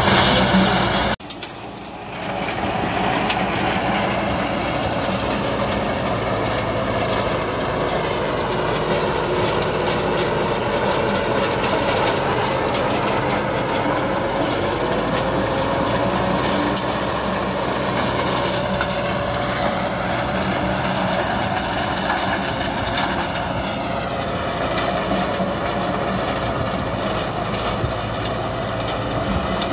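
Tractor engine running steadily under load while driving a rotary ridger whose rotating tines churn the soil into ridges, with a faint whine that slowly dips and rises in pitch. The sound cuts out briefly about a second in and then carries on.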